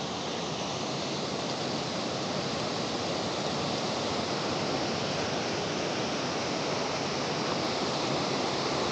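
A rain-swollen creek running high in flood: a steady rush of fast water that grows slowly louder.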